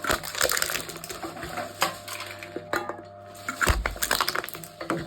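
Aluminum cans being crushed by a machine: a run of sharp crackling crunches of buckling metal, with a heavy low thump about three and a half seconds in, over a faint steady machine hum.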